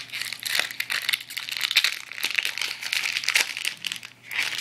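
Foil wrapper of a Pokémon booster pack crinkling and tearing as it is opened: a dense run of crackles, with a short lull near the end.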